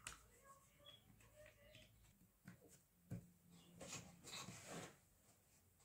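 Quiet rustling and light clicks of cardboard jigsaw puzzle pieces being handled on a table, loudest about four to five seconds in, with a few faint high squeaks in the first two seconds.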